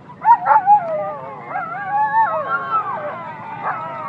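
Several restrained saluki hounds whining and yelping in overlapping high, wavering cries that slide up and down in pitch, straining to be let go at the start of a race.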